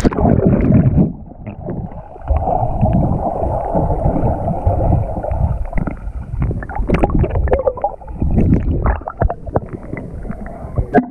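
Muffled water gurgling and sloshing with scattered knocks and clicks, heard from a camera submerged in a swimming pool. The sound turns dull about a second in as the camera goes under, and there is a splash near the end as it breaks the surface.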